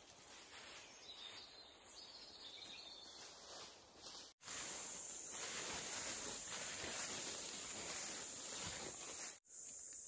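Forest ambience: a steady high insect drone over a soft even hiss, with a few faint bird calls in the first half. It cuts out abruptly twice and comes back slightly louder.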